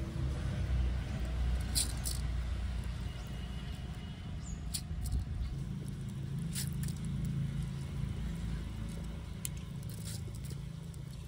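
Handfuls of washed rice dropped into a small clay pot, making soft taps and a few sharp clicks, over a steady low rumble.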